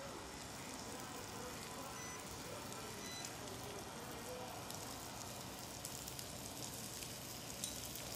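Sheepshead fillets frying in melted butter in a frying pan: a steady sizzling hiss with a few small pops.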